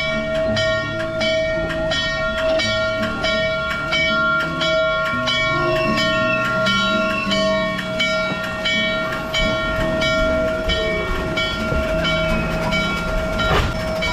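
N&W Class J No. 611 4-8-4 steam locomotive standing idle: a steady high whine with a regular beat about twice a second and shifting low rumbles underneath. A brief louder burst comes near the end.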